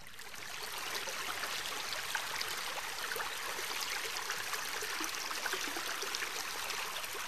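Running water of a stream, a steady rushing and trickling with many small splashes, fading in over the first second.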